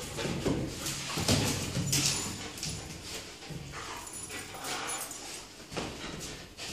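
Six-month-old Belgian Malinois puppy whining and giving short barks while it bites and tugs on a training rag. Its claws scuffle and scrabble on the tiled floor as it lunges.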